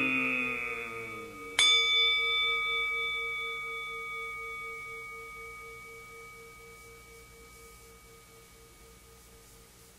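A chanting voice slides down and fades away. About one and a half seconds in, a Buddhist altar bowl bell (rin) is struck once and rings on with a slow pulsing hum, fading gradually until it is almost gone.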